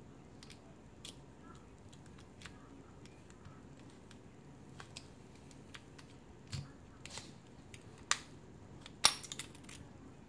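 Light metallic clicks and ticks of a Peterson .025 Gem pick and tension wrench single-pin picking a clear acrylic practice padlock, setting pins one by one. The clicks are sparse at first, grow louder around seven and eight seconds in, and the loudest is a quick cluster just after nine seconds as the lock opens.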